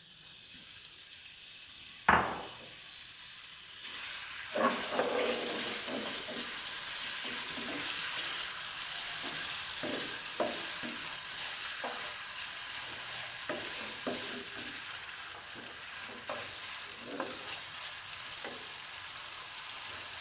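Chicken pieces frying in a pan: a single loud knock about two seconds in, then steady sizzling from about four seconds in, with the repeated scrape of a spoon stirring them.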